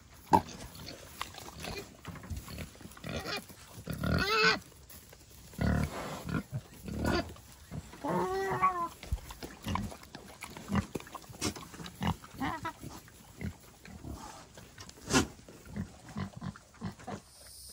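Vietnamese pot-bellied pigs grunting on and off in short, irregular bursts, with one higher call that rises and falls about eight seconds in.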